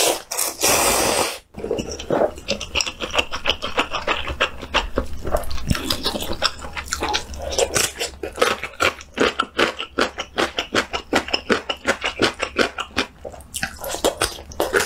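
A loud slurp of instant noodles about a second long at the start, then chewing that turns into rapid, crisp crunching of pickled radish, several crunches a second, through most of the rest.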